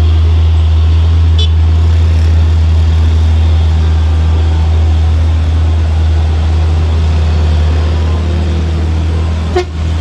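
Steady low drone of vehicle engines running as traffic climbs a steep hairpin road, with a brief click near the end.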